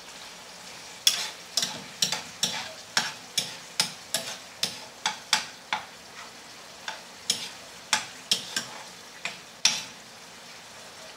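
Metal spatula knocking and scraping against a frying pan as sardines and tomato are stirred, in quick irregular clicks that start about a second in and stop near the end, over a faint steady sizzle of frying.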